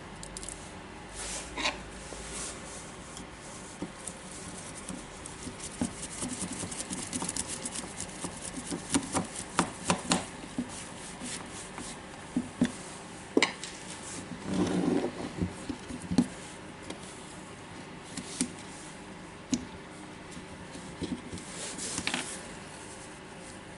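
Small handling noises from hand-tightening a screw and working with small parts inside a cordless drill housing: scattered clicks, taps and rubbing of a screwdriver on plastic and metal, with a longer scraping rub about fifteen seconds in.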